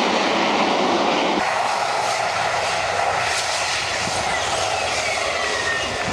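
Harrier jump jet's Pegasus turbofan running at high power: loud, steady jet noise. The low rumble drops away abruptly about a second and a half in. Over the last three seconds a high whine falls slowly in pitch.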